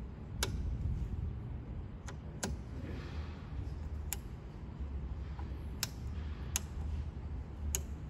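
Rotary selector switches on a Federal Products EAS 2354 dual gauge calibrator clicking through their detent positions as they are turned by hand: about seven sharp, separate clicks at uneven intervals, over a low steady rumble.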